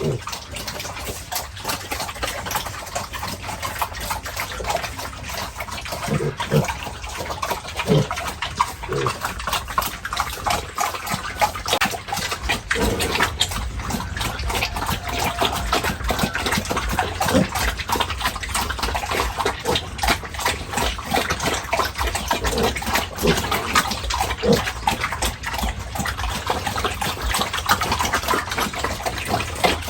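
Pigs grunting and feeding, with a dense, steady run of short clicking and smacking noises and an occasional low grunt.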